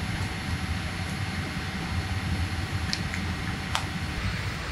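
Steady cabin noise inside a jet airliner: a low engine and air rumble with a hiss above it. A couple of faint clicks come about three and four seconds in.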